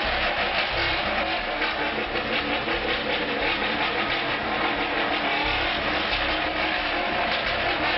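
Several motor vehicle engines running and revving together, a steady, dense din in which no single engine stands out.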